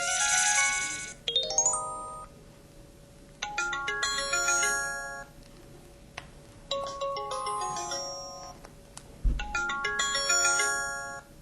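Built-in sound effects of a PG-L5000 mobile phone, played one after another. There are about five short electronic jingles and chimes of a few notes each, with brief pauses between them. One is a rising run of notes about a second and a half in.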